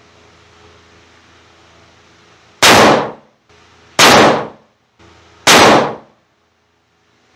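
Three shots from a 7mm PRC Mossberg Patriot bolt-action rifle, about a second and a half apart, each a sharp report that dies away within half a second.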